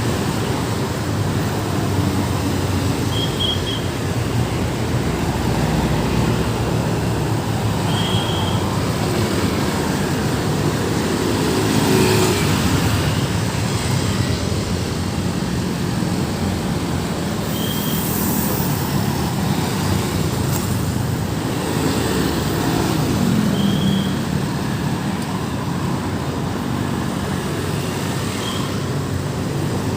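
Busy road traffic: a steady wash of vehicles passing, with engines swelling as heavier vehicles go by about a third of the way in and again about two thirds in. A few brief high chirps sound every few seconds over the traffic.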